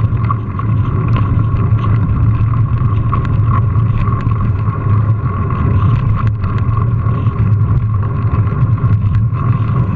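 Steady wind and tyre rumble picked up by a GoPro on a moving mountain bike, with scattered small clicks and rattles.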